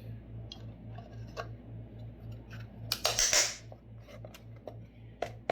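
Light clicks and taps of a part being handled and fitted back onto a Segway Ninebot S2, with a short scraping rustle about three seconds in. A steady low hum pulses underneath.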